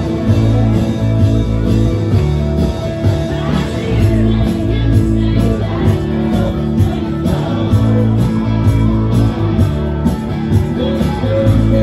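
Live band playing country rock: electric guitars, bass guitar and a drum kit keeping a steady beat, with a singer's vocals.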